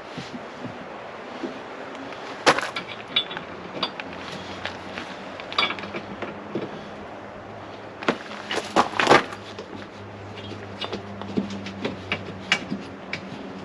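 Irregular clicks and knocks of hand tools being handled and set against metal during the nerf bar installation, with a cluster of sharper knocks a little past the middle. A steady low hum sets in a few seconds in.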